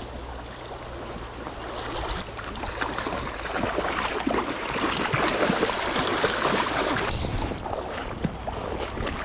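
Shallow river running over gravel, with splashing in the water that builds from about two seconds in and eases off near the end, as a hooked sockeye salmon is brought in.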